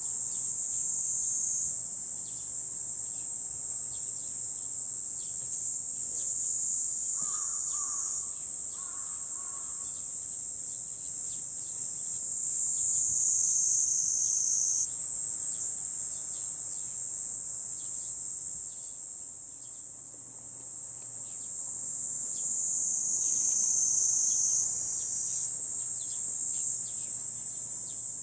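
Chorus of cicadas shrilling in a steady, high-pitched drone that sags slightly in pitch and swells back every several seconds.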